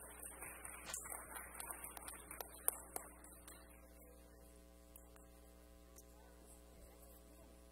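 Light, scattered clapping from a small audience, dying out about three and a half seconds in and leaving a quiet hall with a steady electrical hum.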